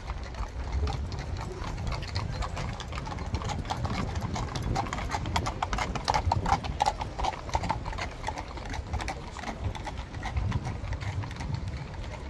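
Hooves of horses pulling a carriage clip-clopping along the street, a quick run of hoof strikes that is loudest about halfway through.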